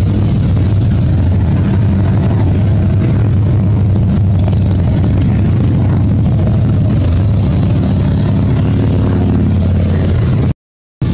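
A motor running with a steady low drone, broken by a brief dropout to silence near the end.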